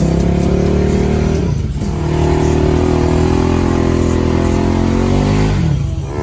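Side-by-side UTV engine running under throttle on a trail. It eases off briefly about two seconds in, pulls again, and winds down near the end.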